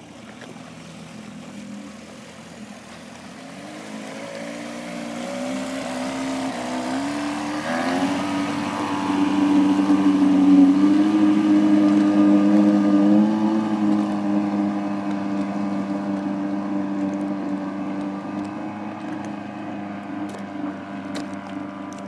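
JPmarine 530 inflatable boat's engine speeding up, its pitch rising over a few seconds, then running steadily at high speed. The sound grows louder to a peak about halfway through, then slowly fades.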